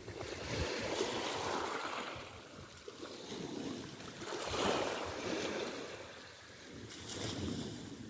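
Small sea waves washing onto the shore: three swells of surf a few seconds apart, each rising and then fading away.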